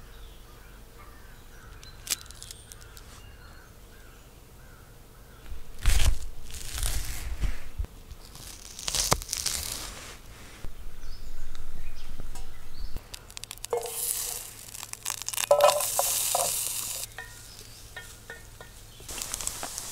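A run of camp-cooking sounds: a knife cutting red onion, then food sizzling in a small frying pan on a camp stove as it is stirred.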